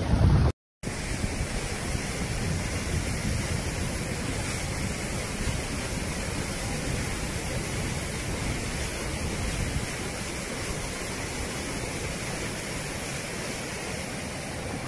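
Muddy floodwater rushing in a wide torrent: a steady, even rush of water noise. A brief louder burst at the very start cuts off in a short gap before the water begins.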